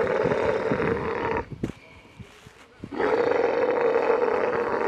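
Dromedary camels mating, with two long, rough guttural calls. The first ends about a second and a half in; the second begins about three seconds in.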